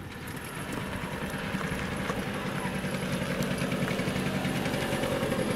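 Small Piaggio Ape three-wheeler's engine running as the truck drives up, slowly growing louder as it approaches.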